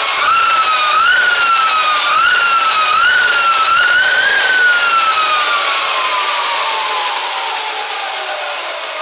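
Lightning Rods Big Block electric mid-drive motor and its chain drive spinning the raised rear wheel of an e-bike under an ASI BAC2000 controller. A whine climbs in about five short surges of throttle, then falls steadily as the wheel coasts down.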